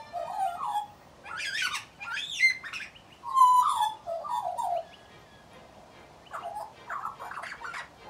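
Australian magpie singing: a warbling run of gliding, rising and falling notes in several phrases, with a short pause about five seconds in.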